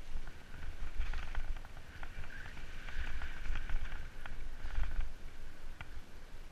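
Mountain bike rolling along a leaf-covered dirt trail: tyre noise through dry leaves swelling about a second in, around three seconds and near five seconds, with sharp ticks and rattles from the bike several times a second. A low rumble of wind and jolts sits underneath.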